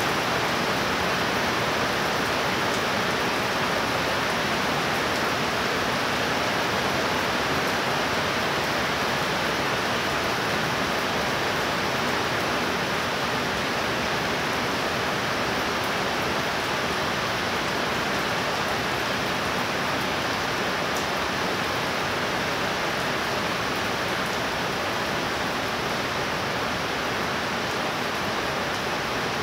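Heavy rain pouring down, a dense, even hiss that holds steady throughout.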